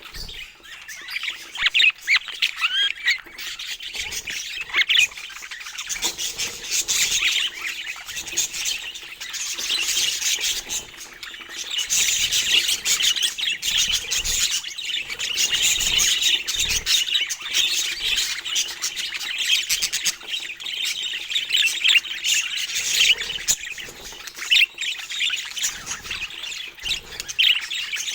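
Budgerigars chattering: a dense, continuous stream of rapid high chirps with sharper calls mixed in.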